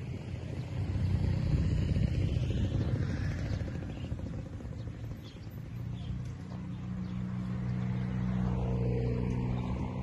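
Low rumble of a motor vehicle engine running nearby. It swells about a second in, eases, then settles into a steady low hum that grows again in the second half.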